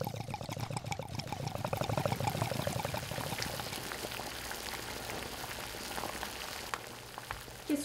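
Water bubbling: a rapid, fairly loud gurgle for the first few seconds, then the softer steady bubbling and hiss of a pot of water at a boil.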